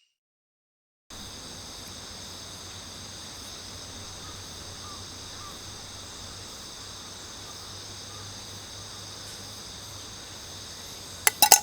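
Insects chirping in a steady, high-pitched chorus, coming in after about a second of dead silence. A few sharp knocks come near the end.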